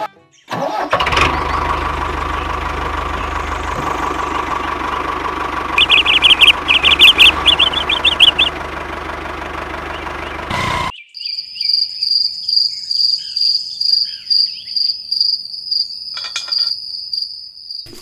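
An engine runs steadily with a low rumble for about ten seconds, a quick run of high chirps sounding over it partway through. It then cuts off abruptly and gives way to high-pitched, rhythmic chirping.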